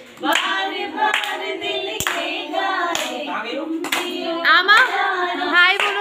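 Several people singing together with rhythmic hand-clapping, about one clap a second. Partway through, one voice breaks into a fast, high wavering warble.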